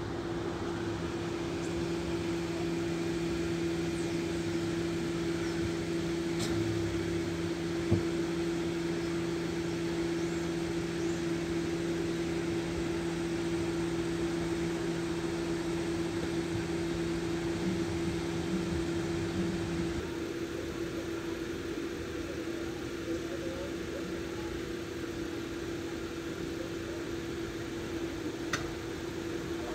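Level crossing audible warning alarm sounding steadily as its lights flash. About twenty seconds in, its lower tone stops and a higher tone joins it, and a single sharp click is heard about eight seconds in.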